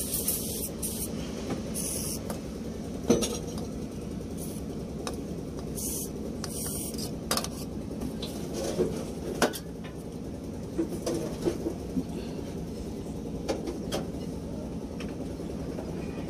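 Scattered metallic clinks and knocks of hand work at a dump truck's starter motor mount, as parts and tools are handled around the mounting studs, with a few brief rustles. A steady low hum lies underneath.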